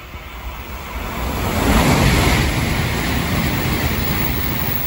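Tokaido Shinkansen bullet train passing through the station at speed on the non-stop main track. A rush of air and wheel noise swells as the nose arrives about a second and a half in, then stays loud as the cars stream past.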